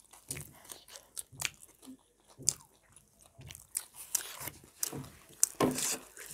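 Close-up mouth sounds of people eating homemade veg burgers: bites, crunching and wet chewing, in irregular clicks and smacks.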